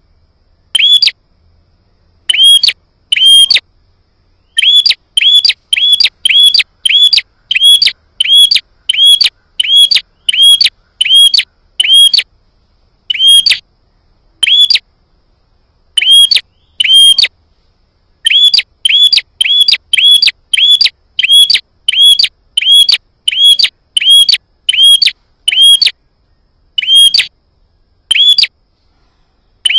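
Prenjak (prinia) lure call: one short, sharp chirp repeated about once a second in long runs, each note the same, with brief pauses between runs.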